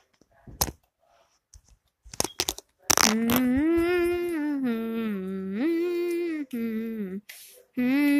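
A few clicks and knocks, then from about three seconds in a person humming a tune in long held notes that step up and down, pausing briefly near the end.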